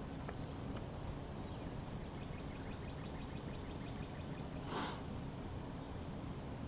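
Quiet riverside background with a steady high insect drone and faint repeated bird chirps over a low hum, broken by one brief rustle about five seconds in.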